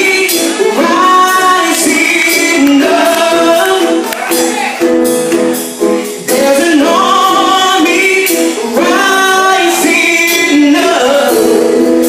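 Gospel worship song sung live, female voices leading, over steadily held accompaniment chords.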